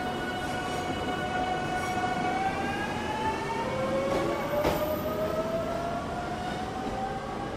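Electric express train pulling out of the station, its motors whining in several tones that climb steadily in pitch as it gathers speed, over the rumble of wheels on rail. A single sharp clack comes a little past halfway.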